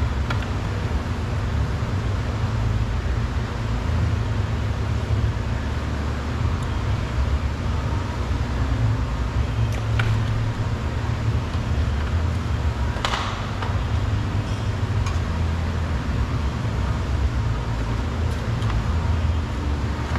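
Steady low rumble of workshop background noise, with a few sharp clicks and a louder snap a little past halfway as the plastic front bumper cover and its clips are worked loose from a 2018 Honda Accord.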